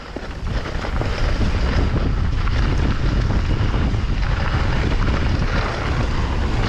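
Wind rushing over the microphone as a mountain bike coasts fast downhill, building within the first second and then holding steady.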